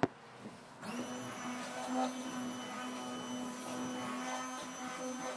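Handheld electric immersion blender starting up about a second in, then running steadily with a whine as it churns thick white lotion in a metal pot.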